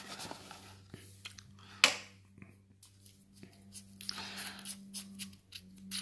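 Cardboard flashlight boxes being handled and stood up on a stone countertop: rustling, one sharp knock about two seconds in, a longer scraping rustle around four seconds in, and small clicks near the end.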